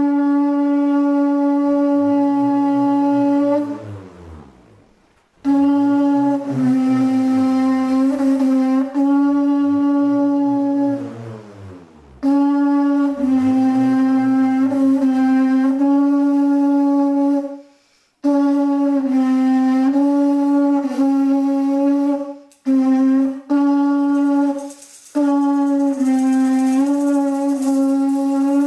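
Conch shell trumpet (a Charonia triton shell) blown in a series of long, steady blasts on one low note, each held for several seconds with short breaths between, the note dipping slightly now and then. Beneath the blasts in the first half, a low sound swells up and falls back in pitch every two to three seconds, the whirring of a swung bull roarer.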